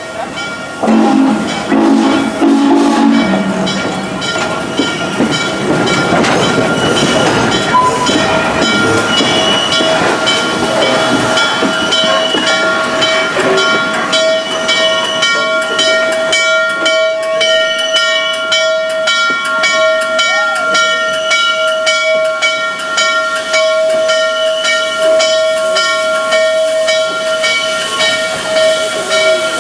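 Steam locomotive hissing steam, with a short low chime whistle sounding about a second in. From the middle on, a steady high whine and regular ticking run under the hiss.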